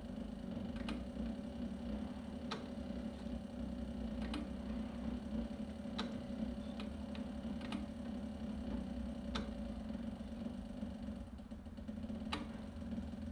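Cobra Class 3 industrial leather sewing machine stitching slowly through thick vegetable-tanned leather: its servo motor hums steadily, with a sharp click from the needle mechanism at each stitch, roughly one every one and a half to two seconds.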